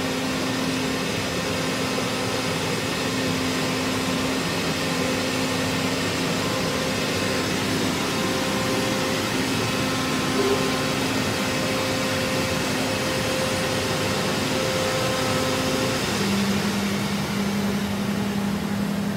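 A CNC oscillating-knife cutting machine running while it cuts insulation board: a steady mechanical hum and hiss with a held tone that drops lower about sixteen seconds in. A short blip sounds about ten seconds in.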